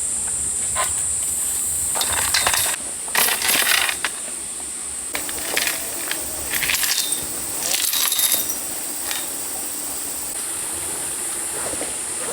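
Light metallic clinking and rattling in several short bursts, over a steady high-pitched buzz.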